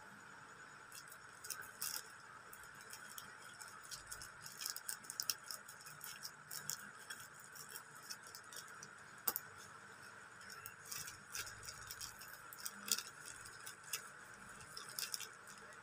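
Scissors snipping through a plastic mailer bag, with the plastic crinkling and rustling as it is cut and pulled open: faint, irregular small clicks and crackles.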